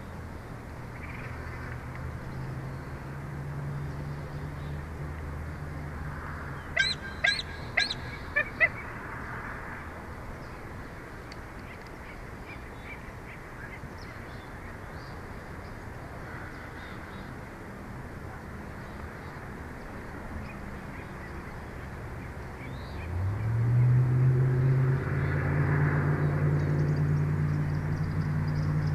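Four short, high bird calls in quick succession about seven seconds in, over a steady low engine hum. Near the end the hum rises in pitch and grows louder, like an engine speeding up, then holds steady.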